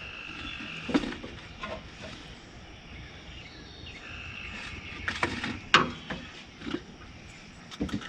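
A few sharp knocks and clinks of metal parts being handled as the air filter is fitted and the wing nut put on, the loudest a little past two-thirds of the way through. A faint steady high-pitched tone sounds behind them at the start and again about four seconds in.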